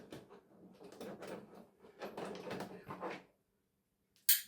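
Parts of a broken flat-screen TV being handled and pried apart during dismantling: about three seconds of irregular scraping and rattling, a pause, then a sharp clack about four seconds in.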